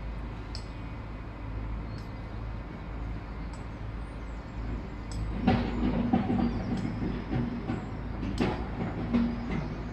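Steady low outdoor rumble, with a passing vehicle growing louder about halfway through and carrying a few steady hum tones. A few short high ticks are scattered over it.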